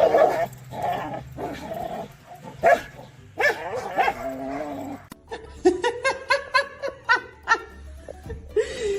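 A dog barking several times over background music.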